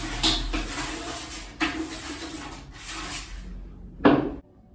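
A spoon stirring and scraping around inside a large red enamel pot: a rough swishing scrape that swells about three times. A brief, louder thud comes near the end.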